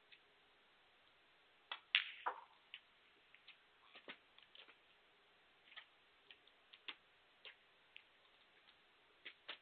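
Snooker shot in a quiet arena: the cue tip strikes the cue ball, followed by a sharp click as the cue ball hits the pink and a knock as the pink drops into a pocket. A duller knock about two seconds later is the cue ball coming off a cushion, then scattered small clicks.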